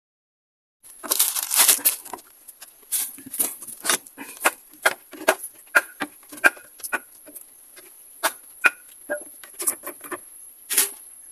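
Plastic gallon jug handled and its screw cap twisted open by hand: a run of sharp plastic clicks and crackles, several a second, starting about a second in, over a steady high-pitched whine.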